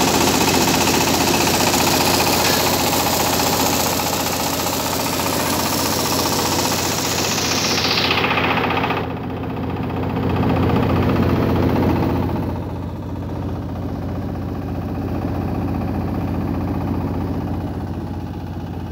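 Belt-driven rice hulling machine running with paddy passing through it: a loud, steady mechanical rattle and rush over a low engine drone. About halfway through the high rushing noise stops and the sound drops, leaving the machine's steady drone running on more quietly.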